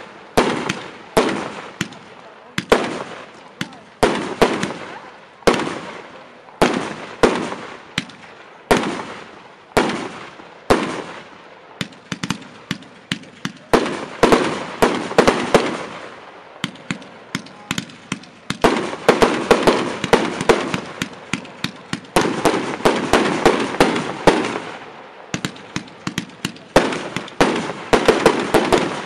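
Startrade Showbox L5 firework compound cake firing: a run of sharp bangs, about one or two a second, as its shells launch and burst. Denser volleys of rapid bangs and crackle come midway and again near the end.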